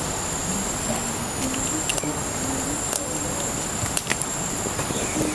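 Insects chirring steadily at a high pitch, with a few small snaps as taro leaves and stems are torn by hand.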